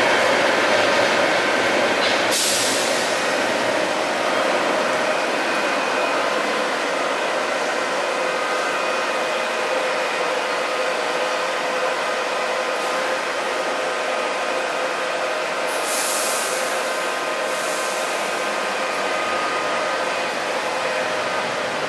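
Light rail trains in an underground station: a departing train's running noise fading over the first several seconds, leaving a steady hum with a few faint whining tones. Short hisses come about two seconds in and twice more later on.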